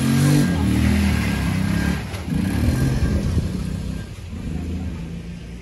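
A small motor vehicle engine runs close by, its pitch stepping up and down with the throttle. It is loudest in the first two seconds, then fades as it moves off.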